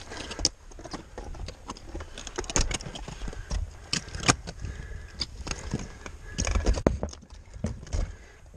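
Climbers moving over rough mountain ground: irregular footsteps with clinks and scrapes of metal climbing gear such as ice axes, over a steady low rumble.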